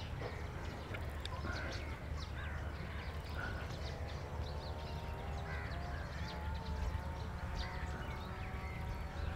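Birds calling in an orchard: many short chirps and calls scattered throughout, with a longer drawn-out call in the second half, over a steady low rumble.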